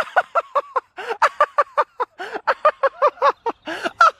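A man laughing hard in quick, high 'ha-ha' bursts, about five a second, right after a thump at the very start.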